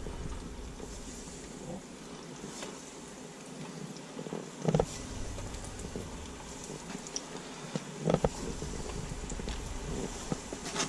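Breaded king mackerel chunks going into hot oil in an electric deep fryer: the oil sizzles and bubbles steadily, with two short thuds about four and a half and eight seconds in.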